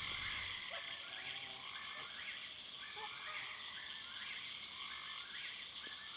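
A night chorus of frogs calling around a lake: many overlapping short, repeated calls over a steady high-pitched chorus.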